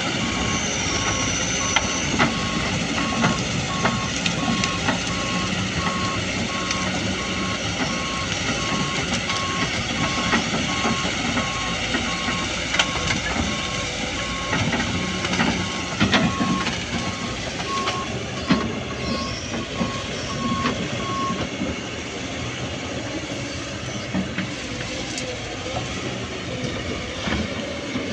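Excavator engine running under work with its travel alarm beeping steadily, one repeated tone; the beeping stops about three quarters of the way in while the engine runs on, with a few metallic knocks.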